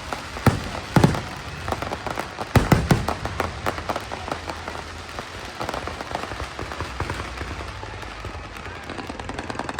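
Aerial fireworks bursting: a few loud booms in the first three seconds, then a long run of crackling that thins out.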